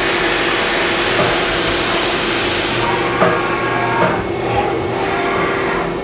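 A 1995 Haas VF-3 CNC mill machining an aluminium block, with the coolant spray hissing steadily over the machine's hum. About three seconds in the hiss stops and the spindle pulls away, leaving the hum and a couple of clunks.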